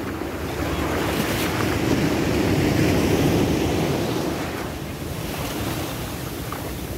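Ocean surf breaking and washing up the beach, swelling for a few seconds and then easing off, with wind buffeting the microphone.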